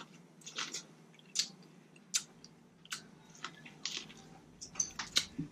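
Close-miked chewing of seafood-boil leftovers in sauce: a run of short, sharp mouth clicks and smacks roughly every half second to second.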